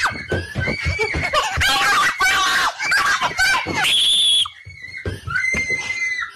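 A high-pitched voice screaming and wailing: quick squealing cries that jump in pitch, a harsher shriek about four seconds in, a brief lull, then long held wails near the end.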